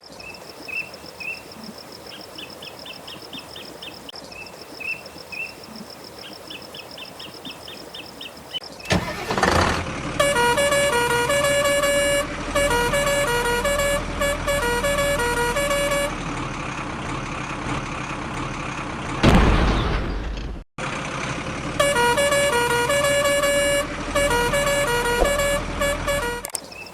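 Electronic horn-like tones of a toy vehicle, repeating in a switching pattern, loud from about nine seconds in with a whoosh there and again near nineteen seconds; before that only faint chirps and a thin steady tone.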